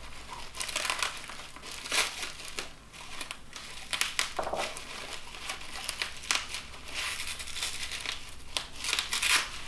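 Packaging wrap being pulled apart, torn and crumpled by hand, crinkling in irregular spurts that are loudest about two seconds in and near the end.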